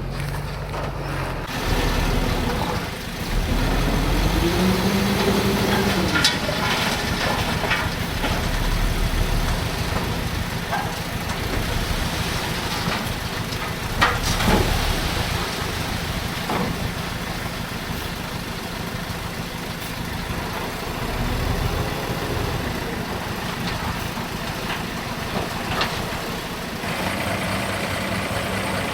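Heavy diesel earthmoving machinery running under load. The engine revs up and falls back about five seconds in, and there are several metal clanks and a loud knock about halfway through.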